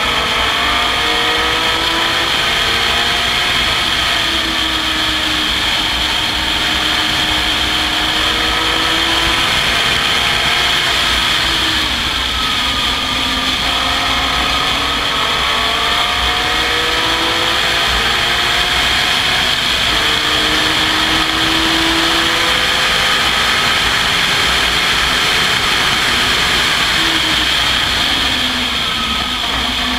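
Open-cockpit race car's engine at racing speed, heard from on board: its pitch climbs through each gear and drops back at each upshift, over a steady rush of wind and mechanical noise.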